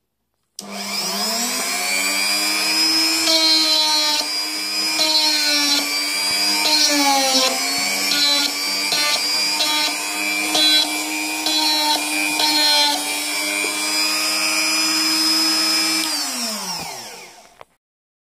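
Handheld rotary tool (mini drill) switched on and spinning up to a steady high whine, its pitch dipping briefly several times in the middle as it is loaded against the work, then switched off and winding down near the end.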